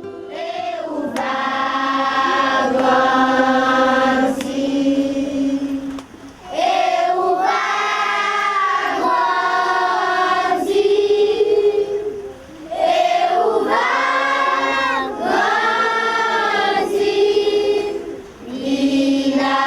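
A choir singing a slow melody in long phrases, with short breaks between the phrases.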